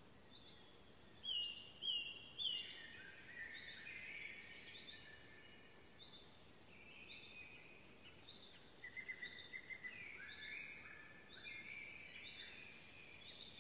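Songbirds singing and calling over faint background hiss. Short downward-sliding calls repeat throughout, the loudest ones about two seconds in, with a quick trill of short notes near the middle.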